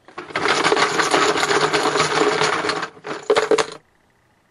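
Plastic team-logo chips, like poker chips, clattering against one another as they are shaken and mixed for about three seconds, then a second, shorter shake.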